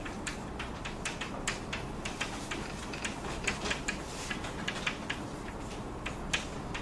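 Irregular light taps and clicks of writing on a board, over a steady hiss of room noise.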